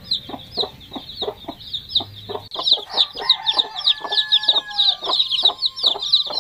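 A brood of chicks peeping fast and without pause, the short high falling peeps growing busier about two and a half seconds in, over a mother hen's steady low clucking at about three clucks a second.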